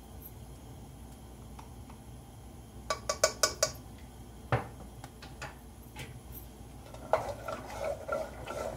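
A quick run of light clinks from a small spoon against a spice container, and a single knock. Then, from about seven seconds in, a wooden spoon stirring and scraping inside an aluminium pressure cooker of water and black-eyed peas.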